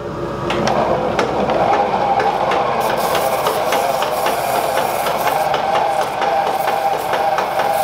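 Foot-powered treadle lathe running, its mechanism clicking rhythmically over a steady whirring hum, while 320-grit sandpaper is held to the spinning wooden mallet. The hum starts about half a second in.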